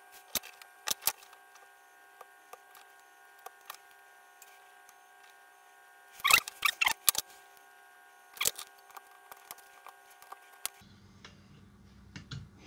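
Soldering resistor leads on a small circuit board: a few light clicks in the first second, then a short cluster of crackles and taps about six seconds in and another about two seconds later, over a faint steady whine.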